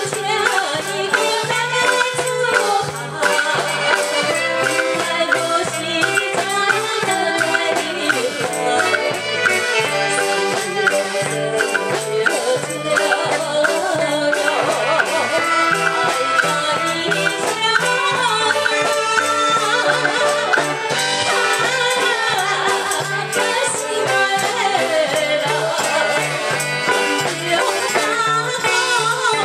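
Live band music with a steady, repeating bass beat, a rattling shaker and melody lines over it.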